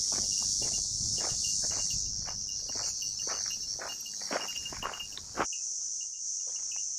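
A chorus of cicadas buzzing steadily and high, with footsteps on a forest trail at about two steps a second that stop about five and a half seconds in.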